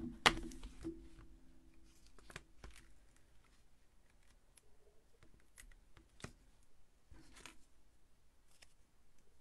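Clear plastic storage case set down on the craft mat with one sharp clack about a quarter second in that rings briefly. After it come scattered light clicks and paper rustles as a sheet of foam adhesive dimensionals is handled inside the case.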